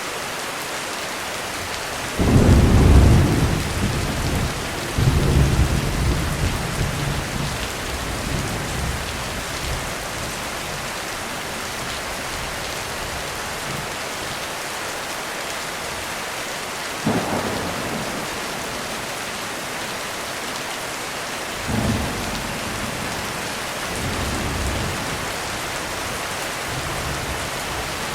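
Heavy steady rain on a roof, with thunder rolling through it: a loud clap about two seconds in, a second soon after, then a long rumble dying away. Later there is a sharper crack and a few smaller rumbles near the end.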